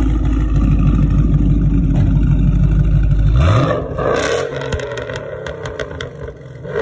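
2012 Ford Mustang Boss 302's 5.0-litre V8 running with a deep, loud exhaust rumble, then revved briefly with a rising pitch about three and a half seconds in, after which it drops back to a much quieter idle.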